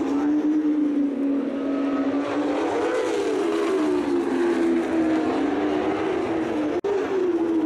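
Moto2 racing motorcycles' Honda 600 cc inline-four engines running hard on track, their pitch rising and falling as they accelerate and ease off through the corners. There is a split-second break in the sound near the end.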